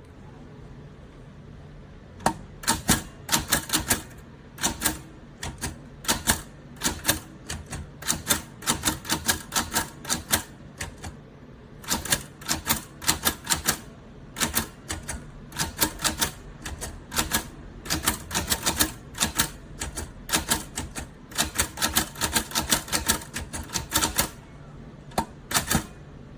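Typing on a Royal 79101T Classic manual typewriter: keys and typebars clack against the platen in bursts of rapid strokes with short pauses between them. A steady low hum runs underneath.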